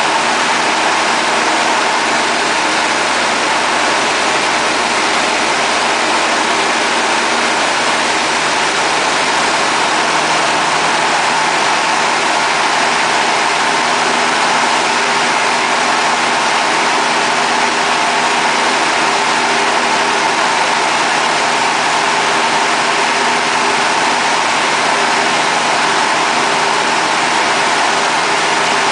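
Light aircraft's engine and propeller droning steadily in cruise, heard from inside the cockpit, under a constant rushing hiss of airflow. The engine note stays level throughout.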